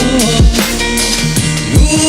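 Background music with a steady beat: deep bass-drum hits under a sustained, gliding synth melody.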